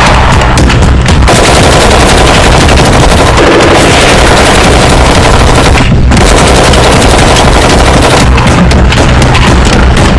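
Magfed paintball markers firing rapidly in a dense exchange of shots, loud and continuous.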